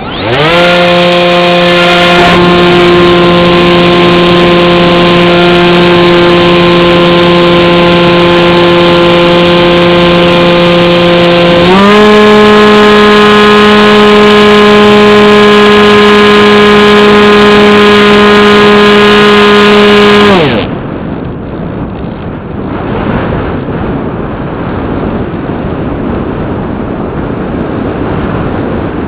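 Bixler 2 RC plane's electric motor and propeller spooling up to a steady high whine, stepping up slightly in pitch about twelve seconds in, then cutting off suddenly after about twenty seconds. After that only wind rushing over the onboard microphone is heard as the plane glides.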